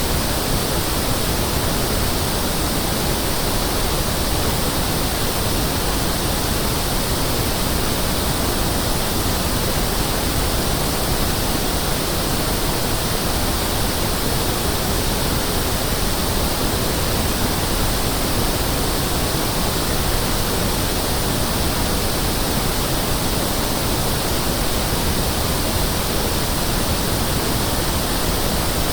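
Pink noise (1/f noise, equal level in every octave), the test signal used to check loudspeakers, sound systems and room acoustics: a steady, even hiss across the whole range from low to high, without any change.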